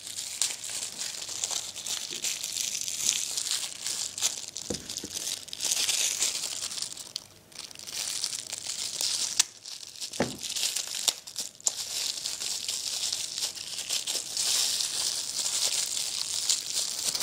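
Packaging crinkling and tearing as it is unwrapped by hand, with a couple of light knocks about five and ten seconds in.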